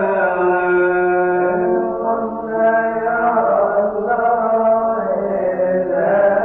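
Coptic Orthodox liturgical chant: a male voice sings long, held melismatic notes that slowly rise and fall in pitch.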